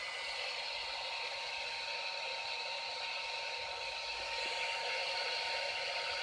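da Vinci 3D printer running: a steady whir and hiss of its fans and motors, with a faint steady tone and a higher whine that starts at the outset and holds for about six seconds.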